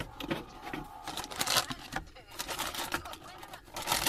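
Irregular clicks, clatter and rustling of objects being handled.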